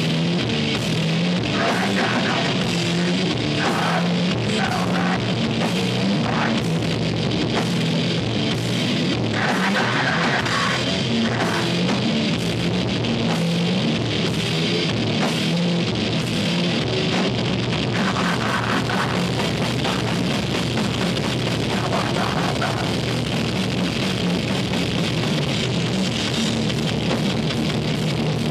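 Rock band playing live: a drum kit and electric guitars playing loud and dense, heard from within the crowd of a small club.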